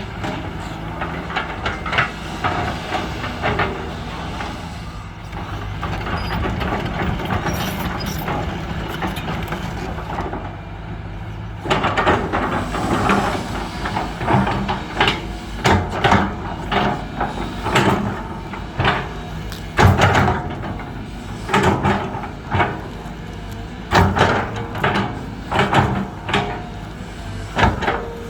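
Truck engine running steadily; about halfway through, repeated clattering knocks and rattles join it, roughly one every second or so.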